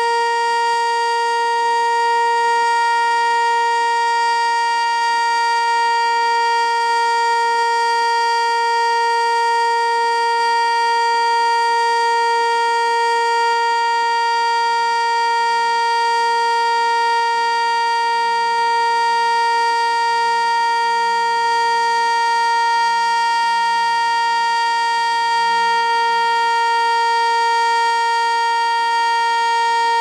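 ASC T-121 electronic outdoor warning siren sounding its steady alert tone: one unwavering pitch with a string of overtones, loud. The siren is stuck on, having missed its cancel tones, so the alert runs on long past its normal minute.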